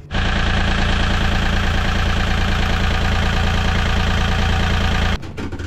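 Volvo Penta marine diesel engine idling steadily, heard close up with the engine compartment open. It cuts off suddenly near the end.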